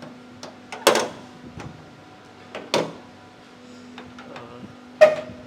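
Three sharp knocks or clunks about two seconds apart, the last with a brief ringing, from the metal cargo box of a Mahindra Jeeto Plus mini truck being handled.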